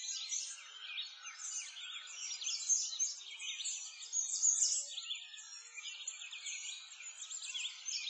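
A chorus of songbirds chirping and singing together, a dense stream of quick high chirps with several birds overlapping.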